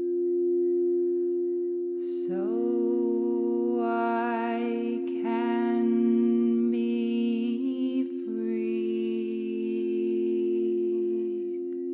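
Singing bowls ringing with a steady, sustained drone. From about two seconds in, a woman's wordless voice hums and tones over it in long held notes, sliding up into each phrase.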